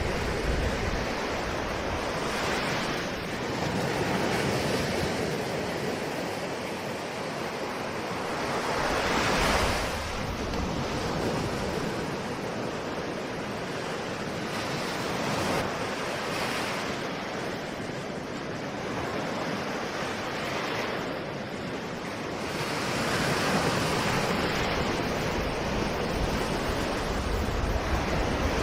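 Ocean waves breaking and washing on the shore, a continuous rush of surf that swells and falls back every few seconds, with wind noise on the microphone.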